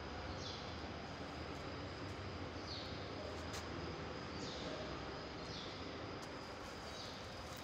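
A bird repeating a short, high, falling chirp five times over a steady background hiss.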